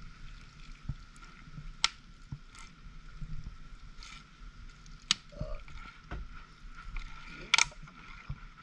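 Liquid poured in a thin stream into a bowl of chopped onions, with a few sharp clicks and knocks from handling the bottle and bowl over a faint steady tone.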